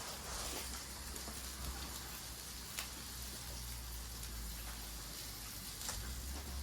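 Meat sizzling on a grill: a steady frying hiss with a couple of sharp pops.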